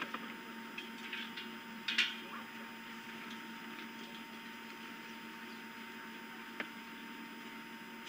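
Quiet outdoor live-camera ambience: a steady low electrical hum under faint background noise, with one brief sharp sound about two seconds in and a single click near the end.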